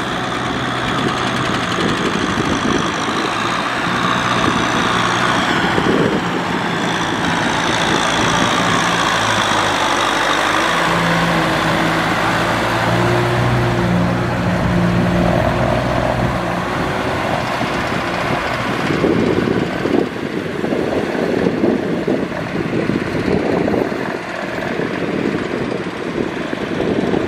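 Kubota M6040SU tractor's diesel engine running steadily under load while it pulls a rotary cultivator through wet paddy mud. In the last third the steady engine hum gives way to a rougher, uneven noise.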